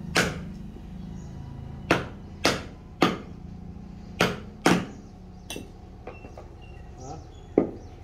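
Hammer driving a wood chisel into a wooden piece to cut a notch: about eight sharp blows in uneven groups, with a few fainter knocks shortly before the last blow near the end.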